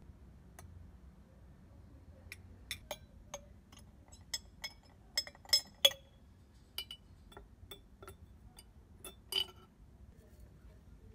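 Glass jar lanterns clinking and knocking as they are handled and lifted by their wire handles: a run of irregular sharp glass clinks with a short ring, loudest around the middle and once more near the end.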